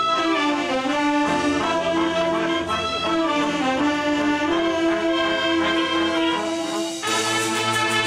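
A marching band of clarinets, saxophones, trumpets, trombones, sousaphones and drums playing a tune together. About seven seconds in the music drops for a moment, then comes back brighter with more cymbal.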